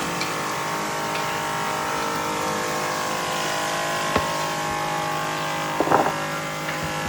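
Electric motor of a handheld power tool running steadily at constant speed, with a sharp tick about four seconds in and a brief rattle of knocks near six seconds.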